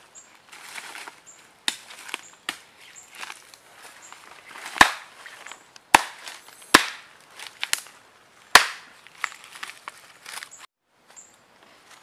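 Footsteps crunching and rustling through dry palm fronds and leaf litter, with four loud sharp snaps in the middle.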